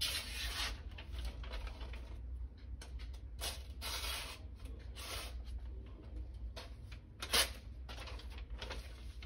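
Freshly sharpened kitchen knife slicing through a hand-held sheet of paper in a series of short rasping cuts, with paper rustling between them and one sharper cut near the end. This is a paper test of the edge, which is not yet sharp enough and still needs more work on the stones.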